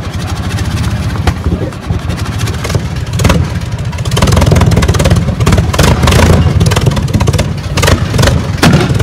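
Fiat S76's 28.3-litre four-cylinder engine running loud just after start-up, firing in rapid, uneven pulses and growing louder about four seconds in.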